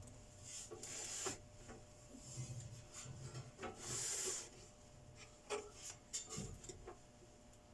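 Hands working on the parts of an opened inverter welding machine: intermittent rubbing and scraping with a few small knocks and clicks, and a brief louder scrape about four seconds in.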